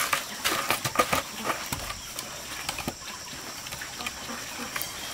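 Charcoal and wood cooking fire crackling, with irregular sharp clicks and light knocks as wood is pushed into the embers, most of them in the first couple of seconds. A faint steady high tone sits behind it.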